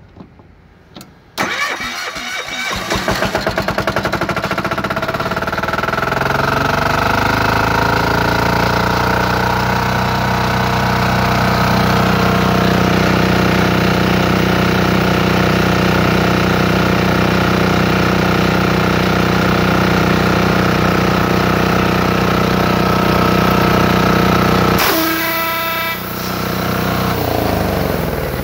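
Gasoline engine of a Max-Air high-pressure air compressor starting suddenly, rising in pitch as it comes up to speed over a few seconds, then running steadily with the compressor. Near the end the running changes abruptly: a burst of hiss and rapid pulsing, and the pitch falls as the machine slows.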